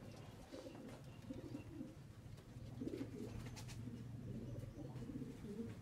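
Racing pigeons cooing faintly, low-pitched calls coming and going over a steady low hum.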